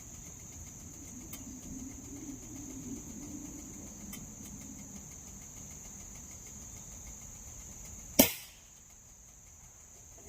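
Crickets keeping up a steady high drone; about eight seconds in, one sharp crack of a Beeman R7 spring-piston air rifle being fired.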